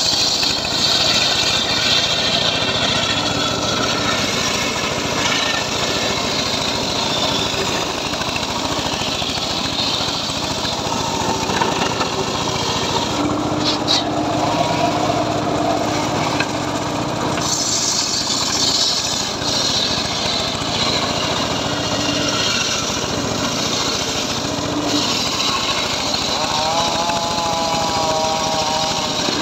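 A homemade engine-driven circular sawmill (gergaji srekel) running and sawing an old teak log. It is a loud, steady machine noise, and its whine rises in pitch near the end.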